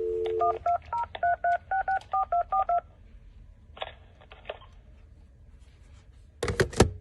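Phone line dial tone on an AT&T E5960 cordless phone, cut off about half a second in, followed by a quick string of about ten touch-tone (DTMF) beeps as a number is dialed. After a quiet pause comes a short loud burst of noise near the end as the call goes through.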